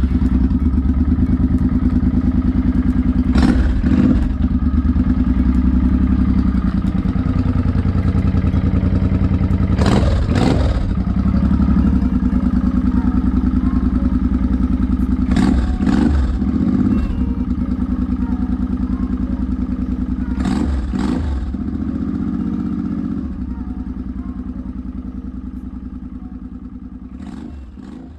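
Suzuki Boulevard M800's V-twin idling just after being started, its throttle blipped in quick pairs of revs every five or six seconds. The sound fades out near the end.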